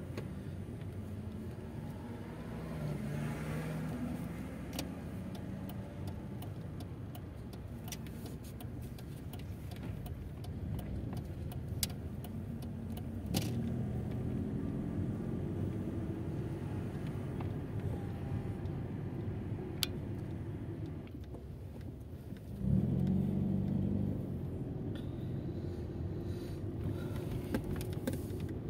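Mercedes-Benz car heard from inside its cabin while driving slowly: steady engine and road rumble, with the engine note coming up louder for a couple of seconds about three quarters of the way through. Scattered small clicks and rattles.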